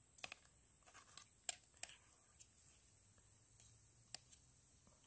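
Light clicks and taps of a metal spoon against a metal camp plate as tofu is cut and scooped. There are about ten small ticks spaced irregularly, the clearest about a second and a half in and again after four seconds.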